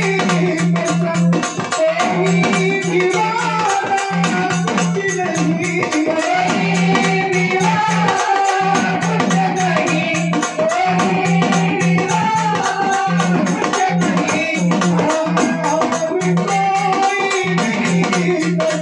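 A Marathi patriotic song sung over dense, fast dimdi frame-drum strokes with jingling, plus a steady low drone that cuts in and out.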